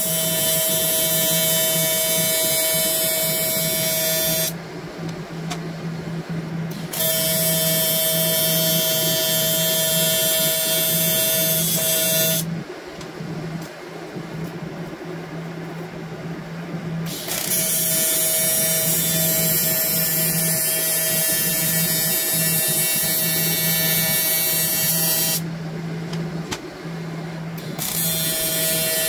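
AC TIG welding arc on aluminium from an Everlast Typhoon 230 inverter welder: a harsh, steady buzz with a constant hum in it. It is struck four times, each weld pass lasting several seconds, with short quieter pauses between passes.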